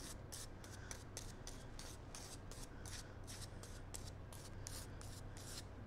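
Rubber cement being brushed onto the edge of a blue foam piece: a faint, quick run of short brush strokes, about four a second.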